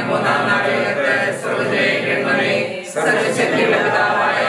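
A group of voices reciting a Malayalam prayer together in a sing-song chant, without instruments. There is a short pause for breath about three seconds in.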